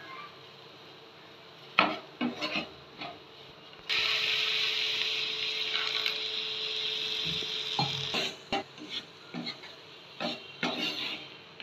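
A spatula knocking and scraping in a frying pan of crumbly egg stuffing, then a steady hiss of about four seconds as a little water goes into the pan, cutting off suddenly, followed by more scraping as it is stirred in.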